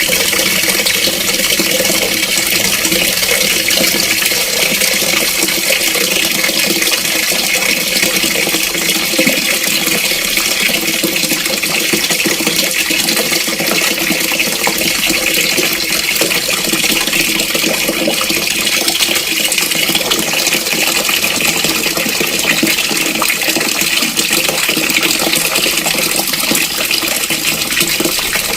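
Water running steadily from an open tap into a filling bucket, a constant splashing rush.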